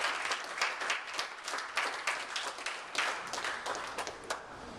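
Group of people applauding, clapping together in a steady rhythm of about three claps a second, which dies away near the end.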